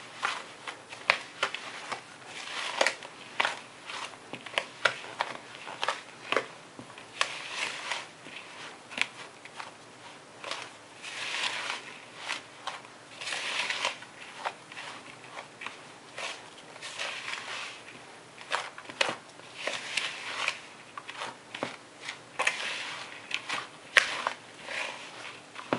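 A utensil stirring dry, crumbly cookie dough in a plastic mixing bowl: an irregular run of clicks and scrapes as it knocks and drags against the bowl and through the flour mixture.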